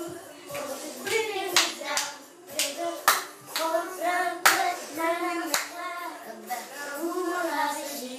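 Children singing a tune with several sharp hand claps between the sung phrases, a clap every second or so.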